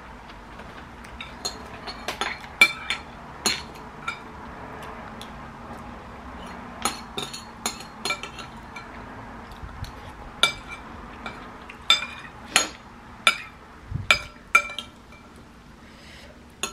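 Metal spoon clinking and scraping against a ceramic bowl while scooping up the last of the rice. It makes irregular sharp clinks with a brief ring, coming in clusters.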